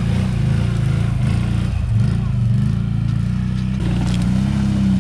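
A motor vehicle's engine running steadily at low revs, its pitch wavering up and down a little.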